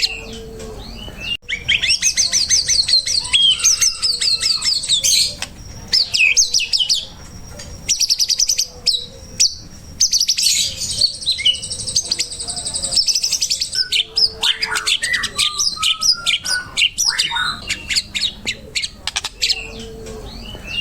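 White-rumped shama (murai batu) singing a loud, varied song of rapid chattering trills and whistled phrases, delivered in bursts with short pauses between them.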